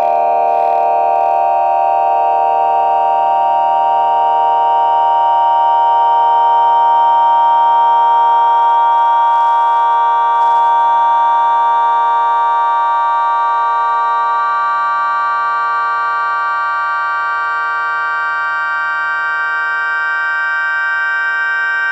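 Electronic sound effect from a 4ormulator unit: a dense synthesized drone of steady tones, with several tones slowly gliding upward throughout and low tones pulsing on and off in a slow, regular rhythm.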